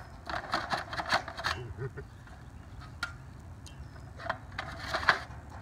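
Metal clinking and rattling from an aluminium extension ladder and its stand-off fittings being handled: a quick run of clicks in the first second and a half, a single one near three seconds, and another cluster around four to five seconds.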